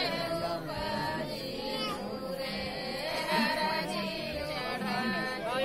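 Voices singing a devotional chant, with a crowd murmuring underneath.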